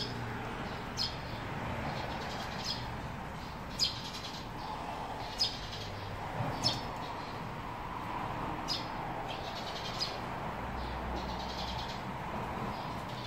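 Eurasian tree sparrows giving short, sharp chirps, about ten scattered irregularly over some thirteen seconds, over a steady low background hum.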